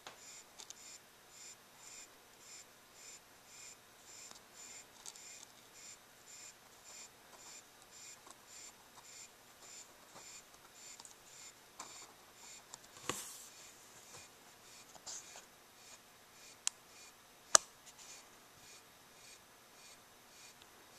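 Praying mantis chewing through a large beetle's hard shell: faint, scratchy crunching at about two to three bites a second, fading after about twelve seconds. A few sharp clicks come later, the loudest about three-quarters of the way in.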